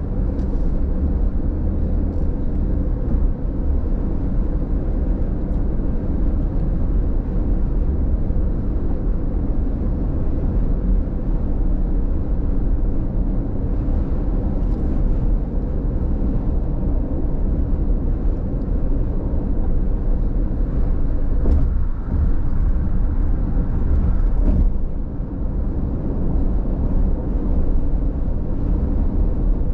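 Steady road and engine noise inside a car cruising on a freeway: a low rumble with a faint steady hum. A couple of brief clicks come about two-thirds of the way through.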